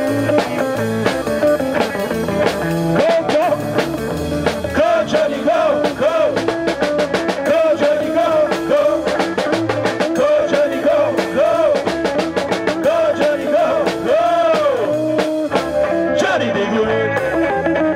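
Live rock band playing an instrumental passage: electric guitar and a snare drum struck with sticks, over bass, with a lead line of repeatedly bent notes.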